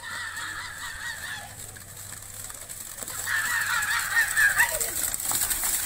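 A pair of kambala racing buffaloes and their jockey splashing through a flooded mud track, the hiss of splashing water growing from about halfway in. Shrill warbling calls sound over it at the start and again in the middle.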